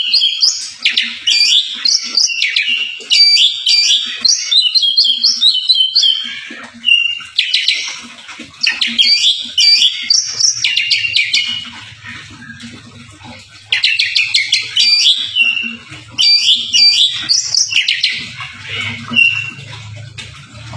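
Oriental magpie-robin singing loudly in rapid bursts of varied whistles, trills and chirps, packed with mimicked phrases, with short pauses between bursts.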